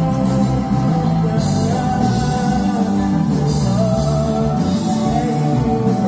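Loud music with singing, playing steadily.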